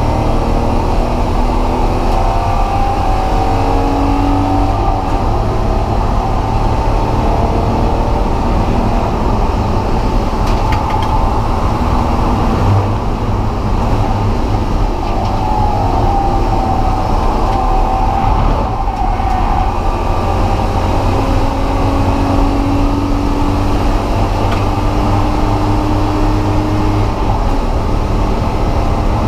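BMW E36 M3's straight-six engine running hard on track, its pitch gliding up and down through the rev range, over a constant dense drone of road and wind noise.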